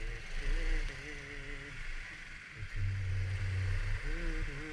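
Kymco Like 125 scooter's single-cylinder engine running on the move over a rough, jolting street, its pitch wavering up and down, under a steady hiss of wind and road noise. The low rumble swells about three seconds in.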